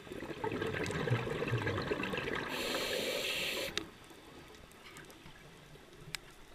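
Scuba diver's breath through the regulator: exhaled bubbles burble loudly for nearly four seconds, ending in a short hiss, then cut off. A quieter underwater background follows, with a few faint clicks.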